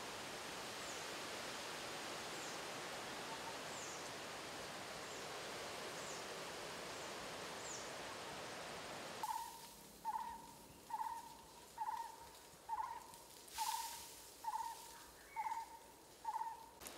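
Forest ambience: a steady rustling hiss with faint high chirps about once a second. About nine seconds in it cuts to quieter woods, where a bird repeats a short clear note about once a second, nine times.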